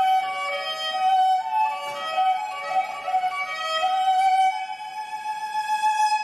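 Background instrumental music: a slow melody of held notes, ending on one long note through the second half.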